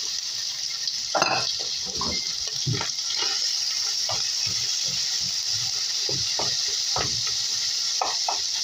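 Canned corned beef hash sizzling as it fries in oil in a pan, with a utensil scraping and knocking against the pan as it is stirred; one knock about a second in is louder.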